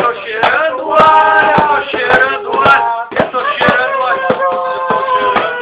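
Lo-fi homemade noise-grind recording: a voice holds drawn-out, wavering notes over irregular loud knocks and bangs, about two or three a second.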